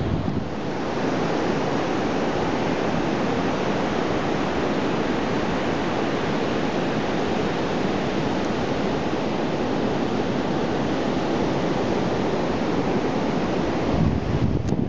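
Steady surf washing on a sandy beach, with wind on the microphone that gets gustier near the end.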